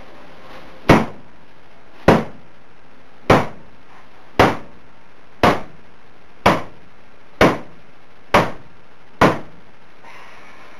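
A car bonnet being struck repeatedly with a long pole: nine sharp blows, about one a second, each a short whack with a brief ring, punching dents and holes into the bonnet.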